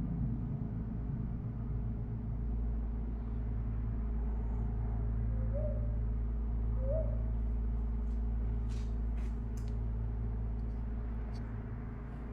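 Large bronze gong, about 135 lb, ringing out in a low sustained drone of several steady tones that slowly fades. Two faint short chirps sound midway and a few light clicks near the end.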